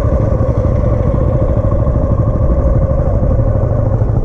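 Motorcycle engine running as the bike rolls slowly, heard from the rider's own bike: a steady low rumble with a constant drone above it.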